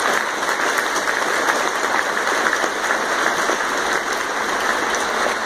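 Large arena audience applauding: dense, even clapping from thousands of hands.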